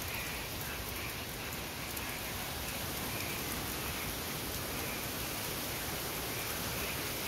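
Hurricane wind and rain: a steady rush of rain, with wind blowing through the trees.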